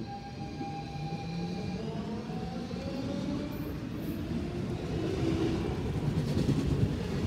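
Copenhagen S-train electric multiple unit accelerating: the whine of its traction motors climbs steadily in pitch while the rumble of wheels on rail grows louder.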